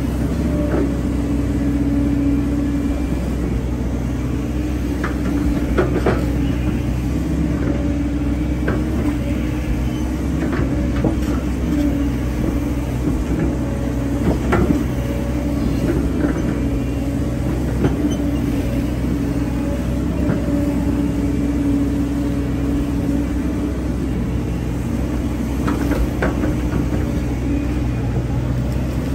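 Hyundai hydraulic excavator working: its diesel engine runs steadily under load with a hydraulic whine that swells and fades, and scattered knocks and clanks from the machine at work.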